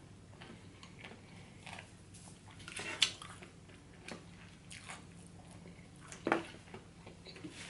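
Close-up chewing of fried shrimp: soft wet mouth clicks and smacks, with two sharper clicks, about three seconds in and again near six seconds.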